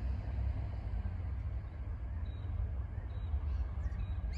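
Steady low outdoor rumble, with a few faint short bird chirps in the second half.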